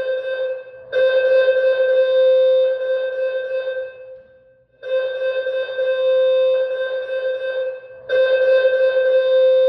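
School alarm warning tone sounding in a loop: a ringing, bell-like note with overtones that starts again about every three and a half seconds, holds for about three seconds and then fades.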